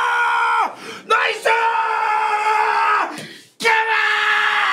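A man screaming in celebration of a goal: three long, drawn-out yells held at a steady high pitch, with short breaks between them.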